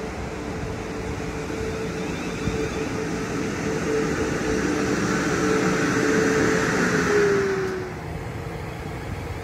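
South Western Railway Class 450 Desiro electric multiple unit pulling out past the platform: a steady electric whine over wheel-on-rail rumble, growing louder as the carriages go by. As the last carriage passes, about eight seconds in, the whine dips in pitch and the sound drops away.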